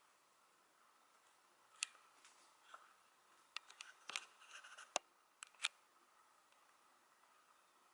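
Cat grooming itself: a scattered run of short, sharp, wet tongue clicks from licking, clustered in the middle, with long quiet gaps on either side.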